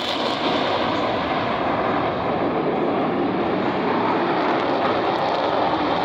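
Fighter jet's engine noise in flight, a loud, steady rush with no break.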